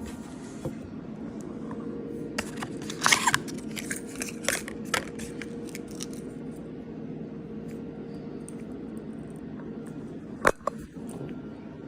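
Cardboard and paper packaging being opened by hand, with a cluster of crackling and tearing sounds a few seconds in and a single loud snap near the end, over a steady low hum.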